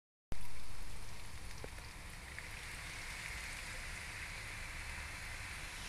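Milk poured from a container onto a pan of grated carrots, a steady splashing trickle. It starts suddenly, loudest at first, then settles.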